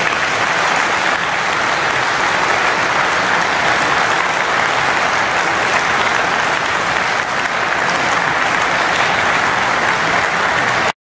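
Sustained applause from a large group of aikido students kneeling in rows, steady throughout, cutting off suddenly near the end.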